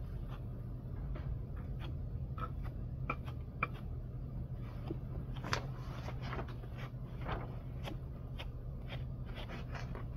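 Steel trowel scraping as it spreads the first coat of acrylic stucco finish over a foam board, in short, irregular strokes, over a steady low hum.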